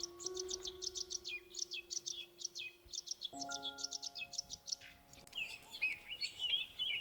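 Small birds chirping in quick runs of short, high calls over soft background music with long held notes. The music's chord changes about halfway through.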